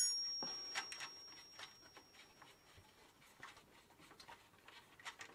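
A ringing metal clink struck on the old steel bicycle frame fades out over about the first second, leaving one thin high tone that lingers for about three seconds. Then come a few faint small clicks of hands and a tool working the seat-tube clamp bolt.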